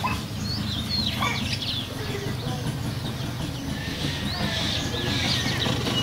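Small wild birds chirping in short, quick high notes, a cluster about a second in and more around four to five seconds in, over a steady low hum.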